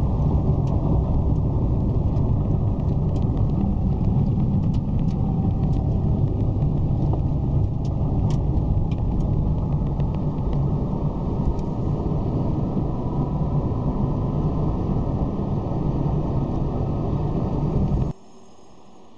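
Steady rumble of road and engine noise inside a moving car, with scattered light ticks; it cuts off suddenly near the end.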